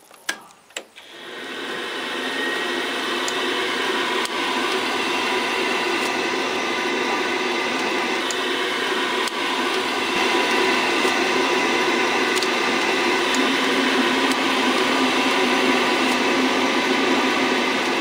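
Two clicks, then a gas combi boiler's fan spins up over about a second and runs steadily with a hum and a whine: the start of the boiler's firing sequence, before its gas valve opens.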